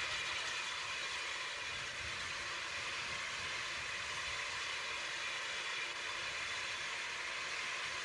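Steady rumble and hiss of a slow-moving train, heard from on board as it runs alongside a station platform.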